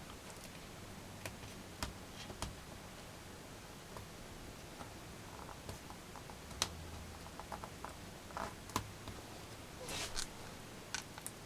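Scattered small clicks and light taps of hands handling laptop parts, working the cracked LCD panel and its cable loose from the screen lid, with a few quicker clicks near the end.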